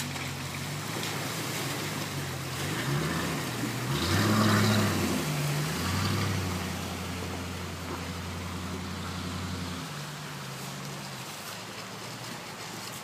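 Land Rover Discovery engine pulling through a fast-flowing river ford: the revs rise about three seconds in and water surges and splashes loudest around four to five seconds, over rushing water. The engine then holds a steady note and drops lower and quieter near the end.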